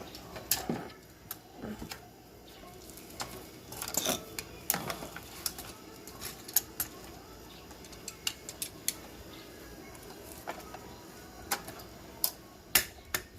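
Irregular clicks and metallic clinks of small metal objects being handled, with a cluster of clinks about four seconds in and a few sharper snaps near the end.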